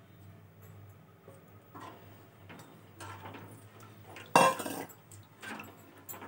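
Wooden spoon stirring a thin cornflour-and-sugar-syrup mixture in a metal kadai, scraping and knocking against the pan in short bursts, with one louder clatter about four and a half seconds in.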